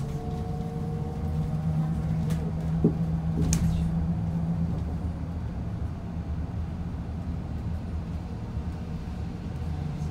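Inside a moving Yutong E10 battery-electric bus: a steady low rumble from the road and drivetrain, with a faint electric motor whine that slowly falls in pitch over the first few seconds. A couple of sharp knocks or rattles come about three seconds in.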